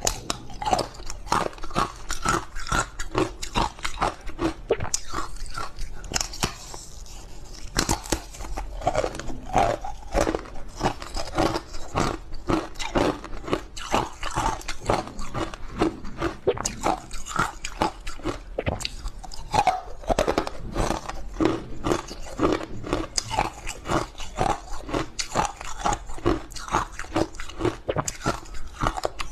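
Close-up biting and chewing of hard ice coated in matcha green tea powder: a continuous run of crisp cracking crunches as the ice breaks between the teeth, with a short pause about seven seconds in.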